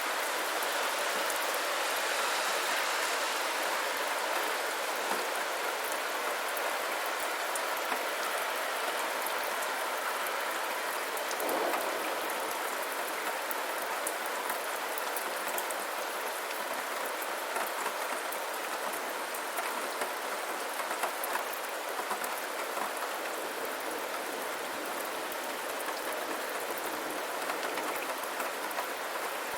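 Steady rainfall: an even hiss of rain with many small drop ticks and patters, swelling slightly about twelve seconds in.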